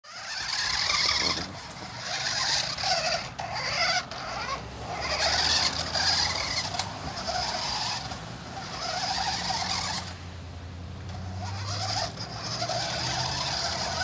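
Electric drive motors and gearboxes of a toy stunt remote-control car whining in repeated bursts of a second or two, starting and stopping as it is driven.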